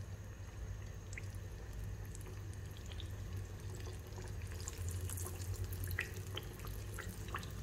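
Pork belly pieces frying in hot oil in a wok over high heat for their second fry: a steady sizzle with scattered pops and crackles of spitting oil, more frequent in the second half.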